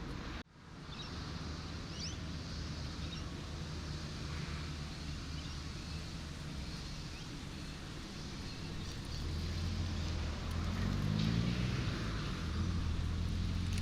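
Steady road and surf noise with a brief dropout about half a second in. From about nine seconds a car engine approaches, its low hum sliding in pitch and growing louder toward the end.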